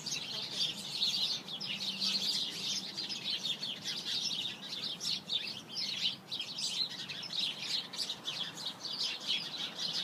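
A flock of small birds chirping and chattering all at once: a dense, unbroken din of many overlapping short calls.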